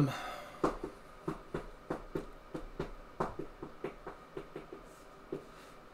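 Light, irregular clicking at a computer desk, two or three sharp clicks a second.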